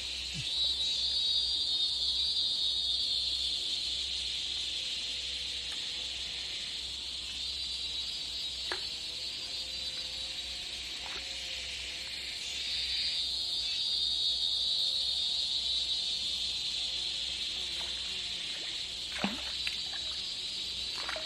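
High, buzzing chorus of forest insects that swells and fades in long waves, with a few faint ticks.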